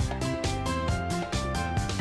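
Background music with a steady beat and pitched instrument notes.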